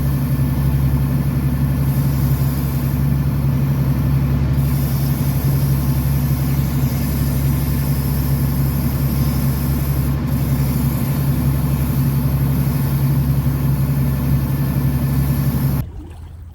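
Fishing boat's inboard engine running steadily with a deep, even hum. The sound drops away sharply near the end.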